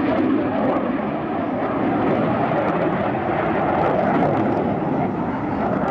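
F-18 Hornet fighter jet's twin turbofan engines heard in flight: a loud, steady, dense rush of jet noise that swells gently a few times.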